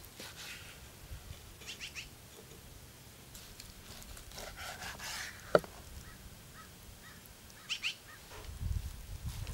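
A knife slicing sheep-tail fat on a wooden cutting board, with soft cutting and scraping sounds. A few short high chirps come twice, and one sharp click about halfway is the loudest sound.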